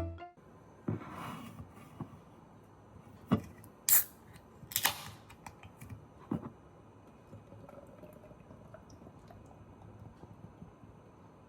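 Several sharp clicks and knocks a second or so apart, then quiet room tone.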